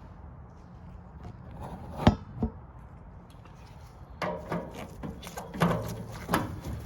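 Hands-on work on a gas water heater's burner assembly: a sharp metallic knock about two seconds in with a smaller one just after, then a run of irregular knocks and clatters of tools and metal parts through the last three seconds.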